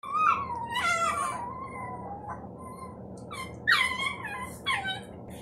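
Small dogs play-wrestling, one whining in high, drawn-out play vocalizations. One long whine sags slightly in pitch over the first two seconds, then a string of shorter whines comes a few seconds in.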